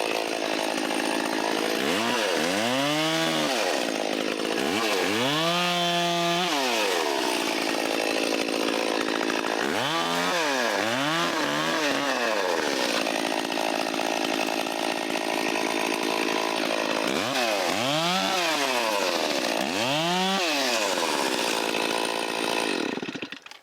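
Stihl 034 two-stroke chainsaw cutting branches. The engine pitch swings up and back down again and again as the throttle is squeezed and released, with steadier stretches at high speed between. The sound stops suddenly near the end.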